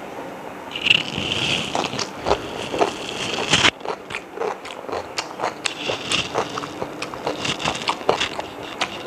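Close-up eating sounds of a person eating chicken biryani: irregular wet chewing, smacking and crunching clicks throughout.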